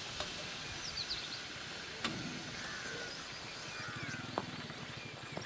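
Outdoor ambience: a steady open-air hiss with a few short bird chirps, scattered faint clicks, and a faint low engine-like drone through the middle.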